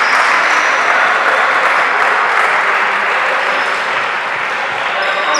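Crowd applauding, a steady dense clapping that eases off slightly near the end.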